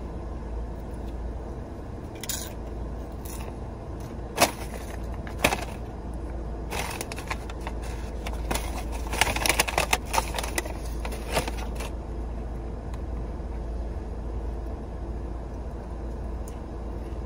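Paper takeout bag crinkling and rustling as a hand rummages in it, a run of crackles starting about seven seconds in and lasting about five seconds, with a few single clicks before it. A steady low hum from the car cabin runs underneath.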